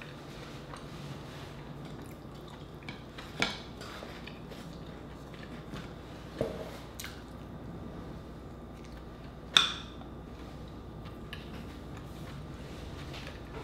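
Close-miked wet chewing and mouth sounds of someone eating mussels, with a few sharp clicks and smacks, the loudest about three and a half and nine and a half seconds in.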